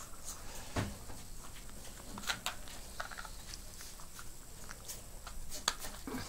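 Yorkshire terrier mother licking and nibbling at her newborn puppy, giving irregular wet clicks and smacks, to stimulate it to breathe.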